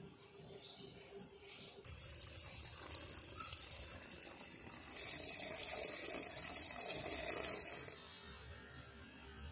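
Water gushing from a top-loading washing machine's inlet jets into the drum and splashing onto the clothes as it fills, heard from inside the drum. The rush swells about two seconds in and eases back near the end.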